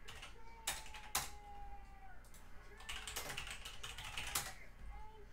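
Two sharp clicks, then about a second and a half of rapid clicking and clatter.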